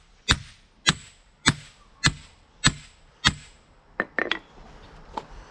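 Sharp wooden knocks, six strong blows about 0.6 s apart and then a few lighter ones near the end, as an old sledgehammer head is driven down onto a new wooden handle.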